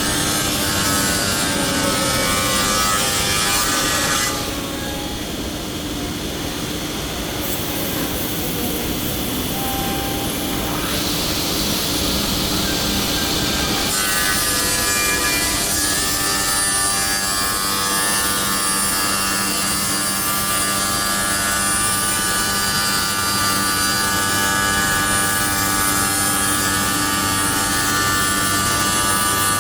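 The saw blade on a Holztek HT-R1SM CNC machine cutting along a fire door, a loud steady cutting noise with the whine of the spindle. The high part of the cutting noise eases about four seconds in and comes back strong about ten seconds later.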